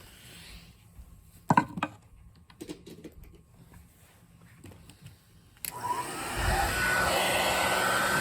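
Old hair dryer handled with a knock, then switched on about two-thirds in: a steady rush of air with a motor whine that rises as it spins up and then holds. It runs normally here, without the squeal it usually makes.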